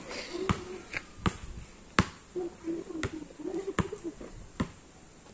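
Basketball being dribbled on packed dirt: a string of sharp, irregular bounces, about one a second.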